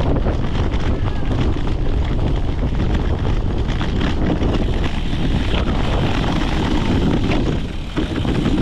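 Wind buffeting the microphone of a camera mounted on a cyclocross bike in motion, with steady rumble and frequent small knocks and rattles from the bike over rough ground.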